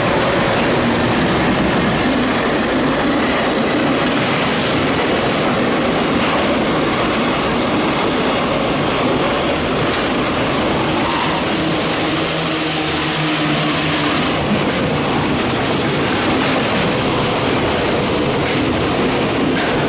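Freight train of container flatcars passing close by at speed: a loud, steady rumble of wheels on rail with the clatter of wheels crossing rail joints.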